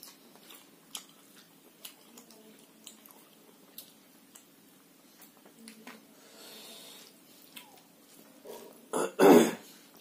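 Mouth sounds of a man eating rice and curry by hand: faint smacking and chewing clicks, a soft breath about six seconds in, then about nine seconds in a loud, short two-part burst from his mouth.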